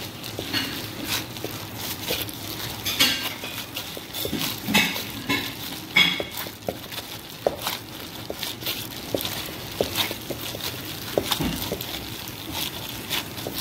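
Bread dough being kneaded and beaten by hand in a stainless steel mixing bowl: irregular slaps, squelches and knocks against the metal bowl.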